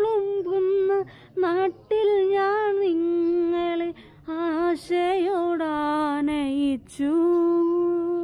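A woman singing a slow Malayalam Way of the Cross hymn alone, without instruments: long held notes with a wavering pitch, in phrases broken by short breaths.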